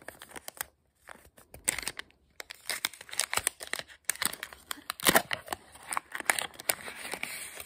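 A small clear plastic packet crinkling and rustling as it is pulled open past its tape, with paper pieces rustling against it. Sparse at first, the crinkling is busy and irregular after about a second and a half.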